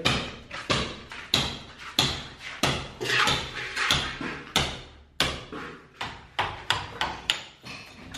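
Hammer blows on a steel chisel, chipping plaster out of a wall, in a steady rhythm of a little under two sharp strikes a second.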